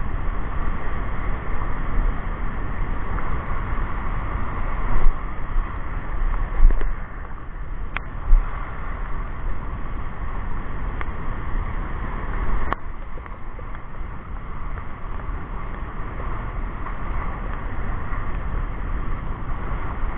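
Wind buffeting the camera microphone over waves washing onto a rocky shore, a steady rushing noise with gusty rises, broken by a few short sharp clicks.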